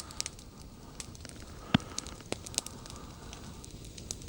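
Small wood campfire crackling, with irregular sharp pops, the loudest a little under two seconds in.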